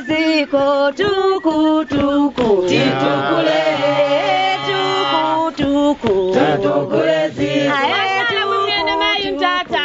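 Voices singing a chant-like song in the local language, with several voices together through the middle stretch.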